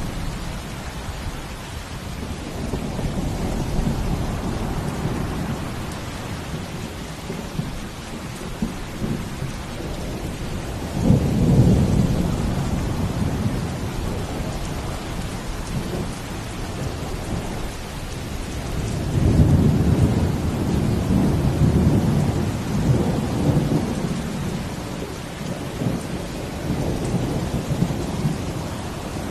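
Steady falling rain hissing, with deep rumbling swells rising and fading beneath it: a strong one about eleven seconds in and a longer one from about two-thirds of the way through.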